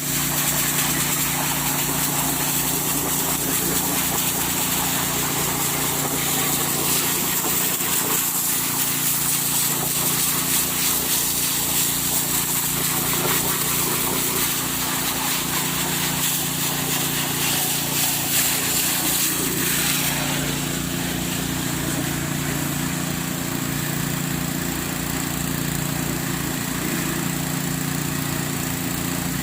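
Small petrol engine of an alkon portable water pump running steadily at a constant speed, with a steady hiss above the engine note that eases slightly about two-thirds of the way through.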